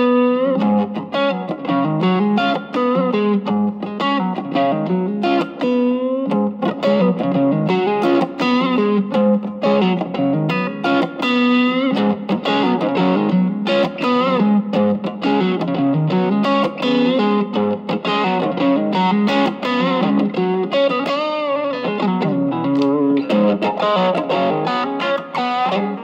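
Electric guitar, a Stratocaster, played through an Ibanez TS808 Tube Screamer overdrive fitted with a JRC 4558D op-amp chip, at a low gain setting, with the guitar's volume knob used to clean up the overdrive. It plays continuous picked single notes and chords, with a few bent notes.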